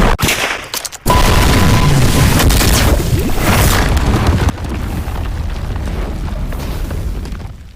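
Anime sound effect of a loud boom followed by a rushing noise, which drops to a lower level about four and a half seconds in.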